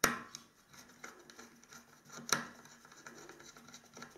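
A screwdriver clicking and scraping on the screws of a metal LED driver cover as it is opened, with a sharp tap at the start and another a little over two seconds in, and small scratches and ticks between.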